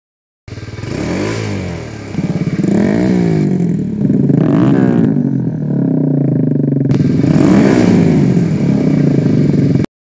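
Kawasaki Z125 Pro's small single-cylinder engine revved through an iStunt aftermarket exhaust, with about four blips of the throttle rising and falling in pitch over a steady running note. It starts suddenly about half a second in and cuts off just before the end.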